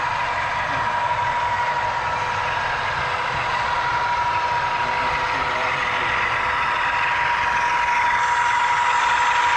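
HO scale model diesel locomotive's DCC sound decoder playing a running diesel engine through its small onboard speaker, with a steady high whine over the engine sound, growing slightly louder near the end.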